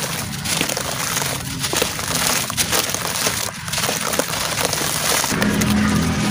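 Dry sand-cement chunks crumbled by hand over a basin of water: dense crackling and gritty crunching as powder and crumbs rain down and splash into the water, with the wet mass squelched and stirred by the hands.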